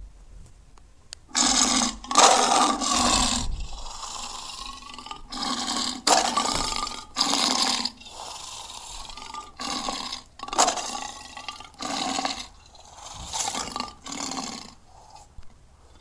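Custom-made Terror Dog monster sound effects: a series of about a dozen separate roars, each half a second to a second long, with short pauses between them.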